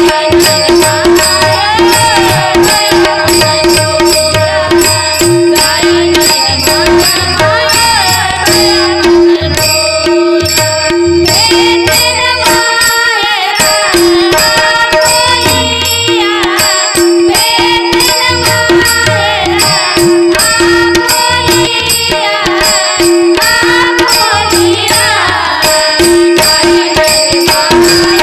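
Music of a Marathi devotional abhang in raga Bhairavi: a winding melodic line over steady held tones, with tabla keeping a regular rhythm.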